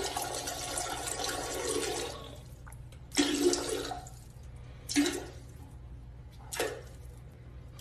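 Toilet flushing: water rushes steadily for about two seconds, then comes in three short, separate surges.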